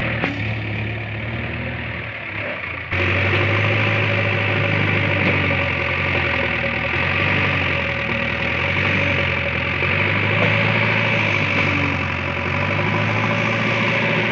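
Diesel engine of a JCB backhoe loader running steadily under light working load, its low drone rising and easing a little as the machine works. About three seconds in the sound jumps abruptly louder.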